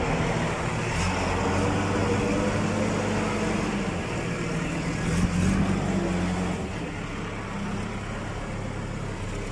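Backhoe loader's diesel engine running steadily.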